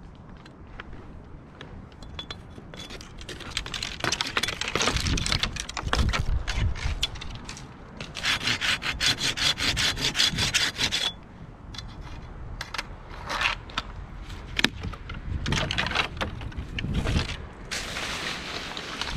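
Hand saw cutting through dead ash wood with rapid back-and-forth strokes, in spells, the steadiest and loudest run about eight to eleven seconds in.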